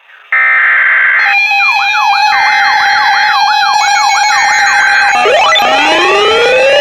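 Several electronic siren sounds layered over steady alert tones. The sound starts abruptly with a fast up-and-down yelp at about two to three sweeps a second. From about five seconds in, overlapping rising wail glides take over.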